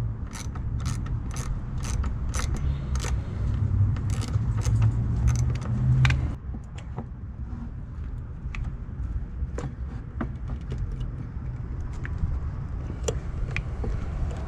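Sharp metallic clicks and clinks from metal parts being handled over a steady low hum. The clicks come about two a second for the first few seconds, then turn scattered and fainter.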